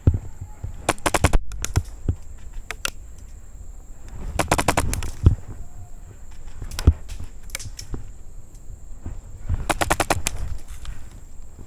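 Airsoft rifles firing in rapid full-auto bursts: three volleys of quick clicking shots, about a second in, near the middle and near the end.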